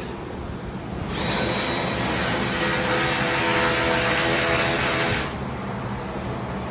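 A machine runs steadily for about four seconds, a loud hiss with a steady whine in it, starting about a second in and cutting off sharply.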